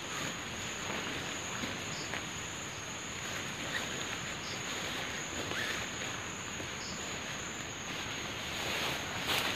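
Insects trilling in one steady high note, with brief rustling and snapping of undergrowth and tarp as weeds are pulled by hand.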